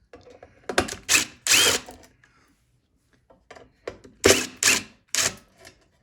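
Cordless impact driver with a Torx T20 bit spinning out machine screws from a blower motor housing, in two short runs about a second in and again about four seconds in.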